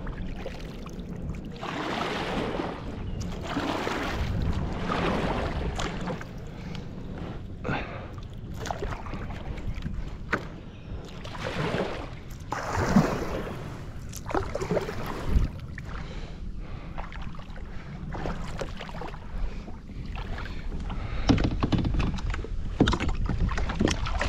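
Kayak paddle strokes splashing through shallow river water, a swell of splashing every second or two, with a few sharp knocks in between.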